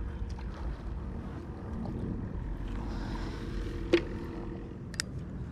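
Low steady rumble, with a sharp knock about four seconds in and a lighter click about a second later, as a plastic bait bucket and its flip-up lid are handled to get out a live shiner.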